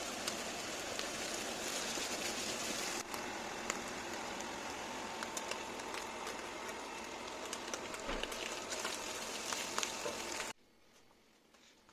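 Prawns frying in hot oil in a pan: a steady sizzle with many small pops and crackles. The sizzle cuts off abruptly about ten and a half seconds in.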